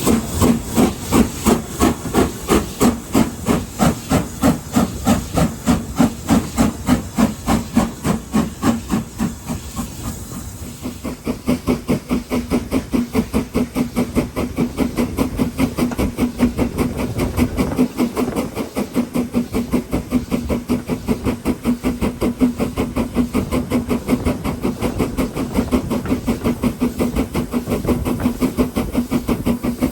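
BR Standard Class 4 4-6-0 steam locomotive 75069 working hard, its chimney exhaust beating in a fast, even rhythm of about three chuffs a second with hissing steam. The beats briefly grow quieter about ten seconds in, then carry on.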